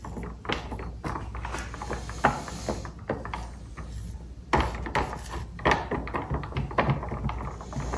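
Wooden stir stick clicking and scraping against the sides of a plastic cup while stirring thin deep-pour epoxy resin: a run of irregular light ticks and knocks, busier from about halfway.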